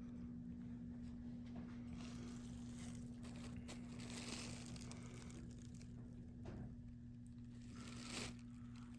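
Faint rustling and crinkling of the leather jacket being handled, a few soft bursts spread through, over a steady low electrical hum.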